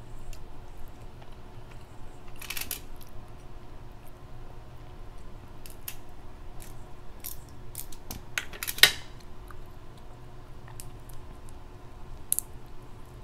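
Crab leg shells being cracked and snapped apart by hand: scattered clicks and snaps, a crackly one about two and a half seconds in, the loudest a sharp crack about nine seconds in, and another near the end.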